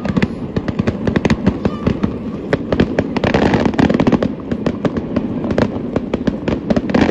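Fireworks display going off: a dense, unbroken string of bangs and crackles, many a second.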